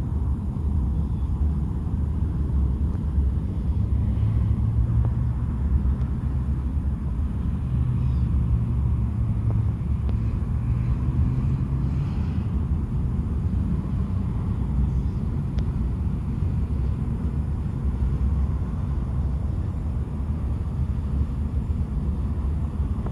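Low, steady rumble of a passing cargo ship's diesel engine, with a deeper hum that swells between about four and twelve seconds in.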